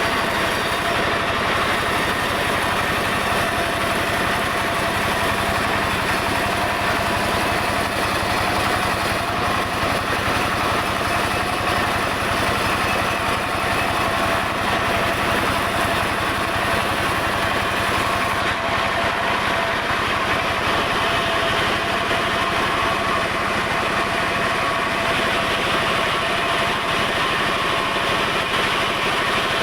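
Engine-driven sawmill saw running steadily without a break. The high hiss eases slightly about two-thirds of the way through.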